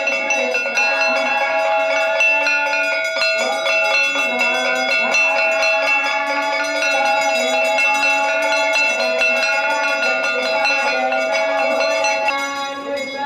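Bells ringing rapidly and continuously, a steady metallic ring with many overtones, stopping about a second before the end.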